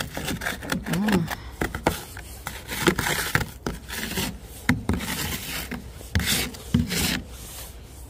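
Wet, heavy snow being scraped and brushed off the side of a car around the door, a run of short, irregular rubbing and scraping strokes.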